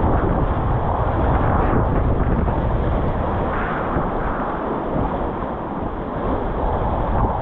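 Whitewater river rushing, with wind buffeting the microphone; the noise swells and eases unevenly.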